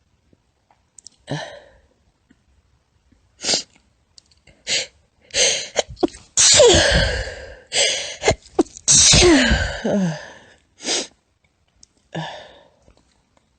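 A woman sneezing in a long fit: a few short sneezes, then in the middle a cluster of longer, louder sneezes with a voiced cry falling in pitch, and two more short ones near the end.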